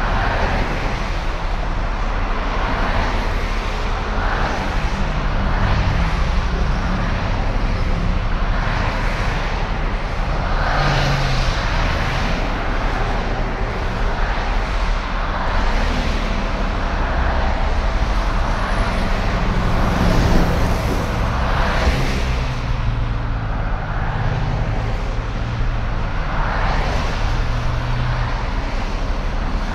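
Busy multi-lane road traffic: a steady rumble of engines and tyres. Cars swell up and fade as they pass close by, every few seconds.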